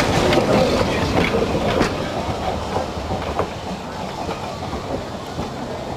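Electric trolley car running on rails, its wheels clicking over the rail joints, gradually getting quieter.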